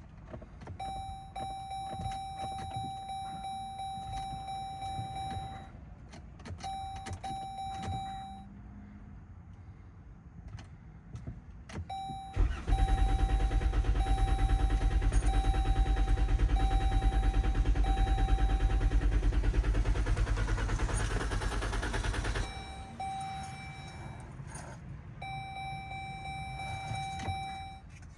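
2017 Chrysler Pacifica's 3.6-litre V6 being cranked by the starter for about ten seconds without catching, then cut off suddenly, with the dashboard warning chime beeping before, during and after. The engine cranks but won't start, a fault the owner suspects is electrical, perhaps the starter or alternator.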